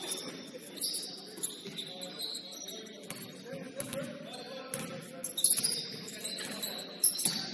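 Basketball game sounds in a gym: a basketball bouncing on the court and sneakers squeaking on the floor, with players' voices in the background and echo from the large hall. The sharpest, loudest bangs come near the end.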